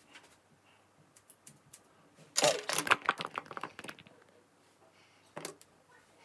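A quick run of sharp clattering clicks lasting about a second and a half, then one more click near the end: a plastic comb and scissors being handled while she trims her own hair.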